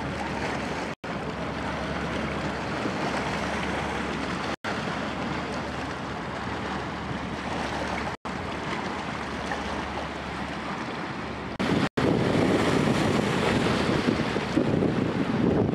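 Wind on the microphone over river water as a Waterbus fast ferry passes, its engines a steady low hum, broken by short silent gaps about every three and a half seconds. About twelve seconds in, it gives way to louder small waves washing over rocks at the water's edge.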